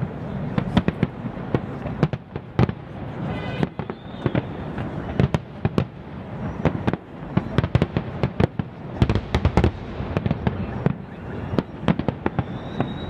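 Aerial fireworks shells going off in a dense, irregular run of sharp bangs and crackles.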